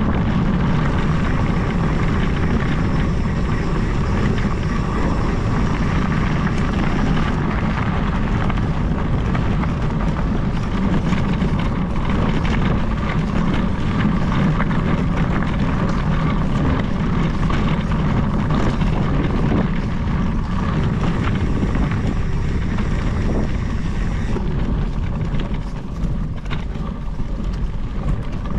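Steady rumble and wind buffeting from riding fast along a gravel track: tyres crunching over loose gravel, with wind blowing across the microphone. It eases slightly near the end.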